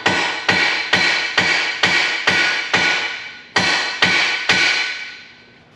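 Hammer blows on the steel crossmember and frame, about two a second with a short pause past the middle, each strike leaving the metal ringing. The new crossmember is being knocked into position during final fit-up before welding.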